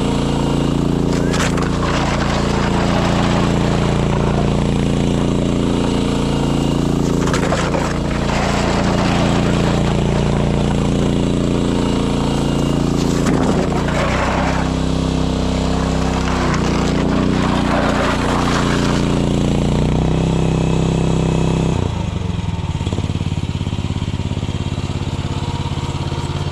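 Mini excavator's small Briggs & Stratton gasoline engine running steadily as the machine is worked, its pitch shifting up and down several times, with a few short rushes of noise along the way. About 22 seconds in the engine drops to a lower, slightly quieter run.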